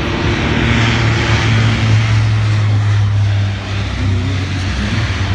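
The four turboprop engines of a Lockheed C-130J Super Hercules at takeoff power as it rolls down the runway and lifts off: a loud, steady propeller drone over a deep hum. It is loudest about two seconds in and eases slightly a little later as the plane climbs away.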